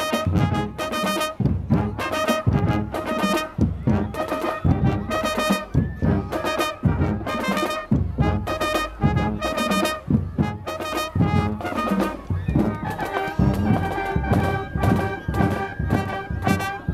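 Brass band of trumpets and sousaphones playing a tune together: short, rhythmic notes over a pulsing tuba bass line, moving into longer held notes in the last few seconds.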